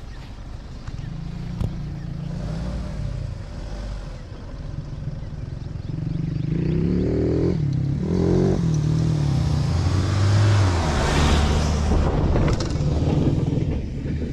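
Mahindra Thar 4x4 engine revving under load off-road. It gets louder and climbs in pitch from about six seconds in, and a rushing noise builds near the end.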